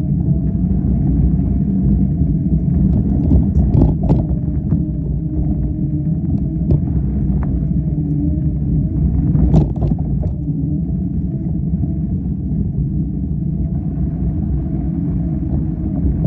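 Steady low rumble of a ride along a deep-sand trail, tyres churning sand with wind on the microphone, under a faint steady whine. A couple of sharp knocks stand out, about four seconds in and again near ten seconds.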